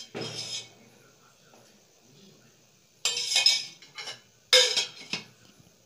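Metal kitchen utensils clinking and scraping against metal cookware: three short clattering bursts, one at the start and two more about three and four and a half seconds in.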